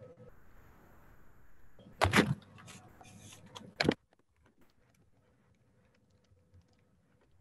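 Handling noise on a video-call microphone: a loud rustling bump about two seconds in and a sharp knock just before four seconds. After the knock the background hiss drops away to a faint hum.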